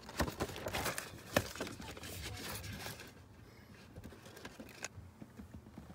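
Handling noises: several sharp clicks and taps with rustling as hands move parts and wiring, busiest in the first three seconds, then one more click near five seconds.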